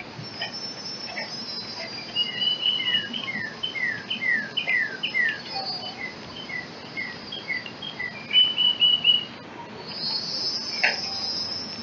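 Songbird singing a long run of short whistled notes, mostly falling in pitch, several a second. A high steady buzz comes in near the end.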